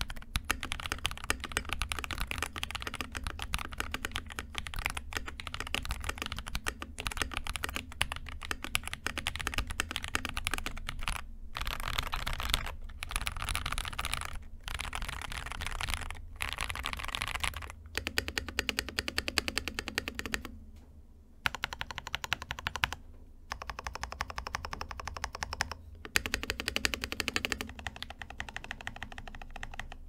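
Mechanical keyboard with stock (unlubricated) Akko V3 Cream Yellow linear switches being typed on fast: a dense stream of key clacks, broken by a few short pauses, the longest about 21 seconds in.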